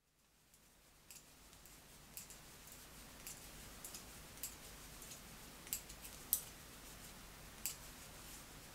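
Faint, irregular clicking of knitting needles, a sharp tick every second or so over soft room hiss.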